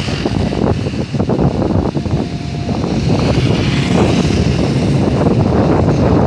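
Road traffic rumble with wind buffeting the microphone, a dense, steady noise that grows a little louder in the second half.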